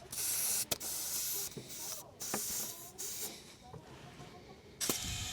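Compressed air hissing from an air line into a tractor tyre during inflation: several bursts of hiss with clicks and short breaks between them, then a steadier hiss near the end.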